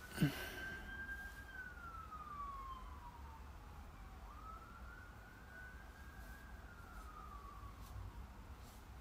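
Faint siren of an emergency vehicle in a slow wail, rising, holding and sliding down over about four seconds, then rising again about four seconds in. A single sharp thump of the phone being handled just after the start.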